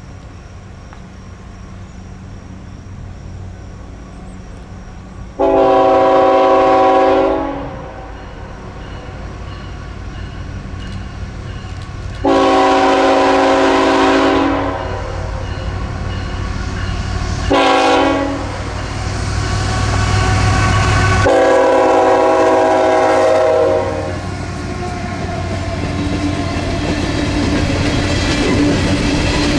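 Norfolk Southern coal train led by a GE ET44AC locomotive approaching and passing, sounding its horn in the grade-crossing pattern: two long blasts, a short one and a final long one. The locomotive's diesel rumble swells as it goes by during the last blasts, then the coal hoppers roll past with steady wheel-on-rail clatter growing louder.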